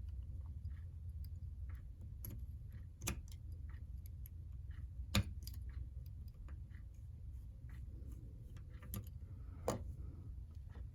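Scattered light clicks and taps of small model-locomotive parts and tools being handled during reassembly, the sharpest about 5 seconds in, over a steady low hum.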